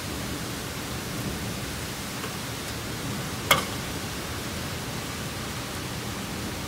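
Heavy downpour of a thunderstorm falling steadily, with one sharp click about halfway through.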